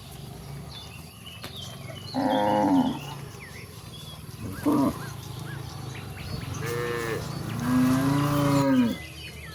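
Cows mooing, four moos in all: a loud moo about two seconds in, a short one near the middle, and a long drawn-out moo near the end.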